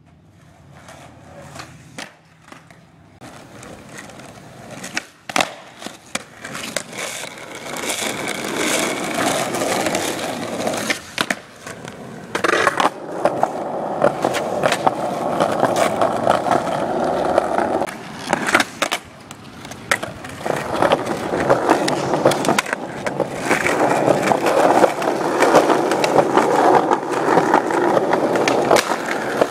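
Skateboard wheels rolling on a concrete sidewalk, with scattered sharp clacks and knocks from the board. The rolling grows louder over the first ten seconds or so.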